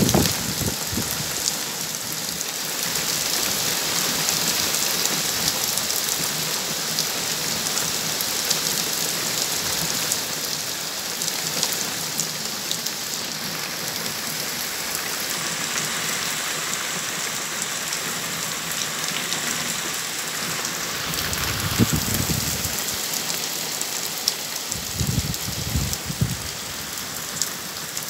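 Heavy rain pouring onto a gravel garden bed and leaves, a steady hiss with many sharp drop taps close by.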